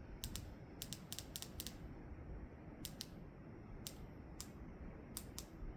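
Faint, irregular clicking of a ceiling fan's handheld remote as its buttons are pressed again and again, about a dozen short clicks over several seconds, while the lights are dimmed and brightened.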